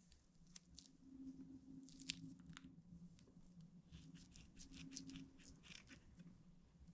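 Faint sticky crackles and clicks of slime being handled, in quick irregular runs, over a low steady hum.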